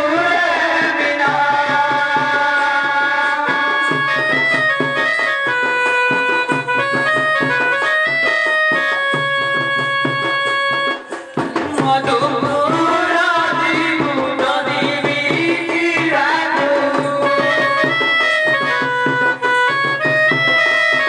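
Folk music: a reed-keyboard instrument plays a melody in held, stepping notes over a steady hand-drum rhythm, with wavering sung or melodic phrases near the start and again in the second half. It breaks off briefly about halfway through.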